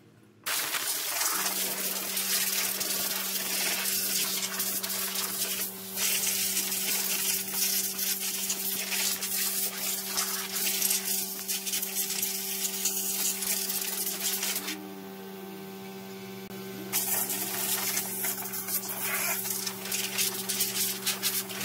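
Compressed-air blow gun hissing in long blasts, blowing loose dust off a car engine bay, with a steady low hum underneath. The blast stops for about two seconds partway through, then resumes.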